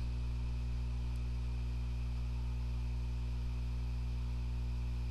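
Steady electrical mains hum from the recording chain: a low drone made of several evenly spaced steady tones, over a faint hiss, with one faint tick about a second in.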